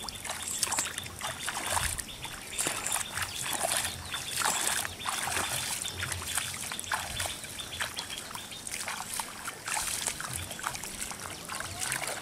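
Bare feet wading through shallow, weedy floodwater, each step splashing and sloshing at an uneven walking pace.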